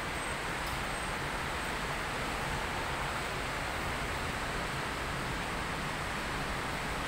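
Heavy rain pouring steadily, an even hiss with no distinct thunder.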